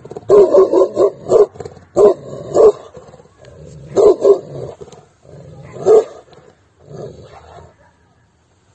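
A young Sarabi dog (Iranian mastiff) barking: a quick run of barks, then single barks every second or two, growing fewer and weaker toward the end.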